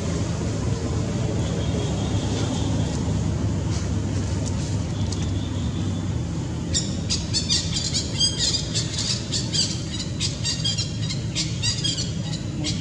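A steady low rumble runs throughout. About halfway in, a rapid series of short, high-pitched chirping calls begins, several a second, and fades out near the end.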